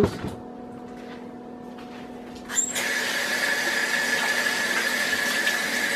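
Kitchen tap turned on about two and a half seconds in, water running steadily into the sink with a faint high whistle, for hand washing. Before it, only a low steady hum.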